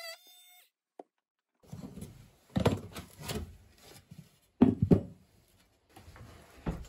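A Makita oscillating multi-tool's buzz ends in the first half-second. After a short silence comes a run of thunks and knocks, the loudest pair about two-thirds of the way in, as the vanity cabinet is handled.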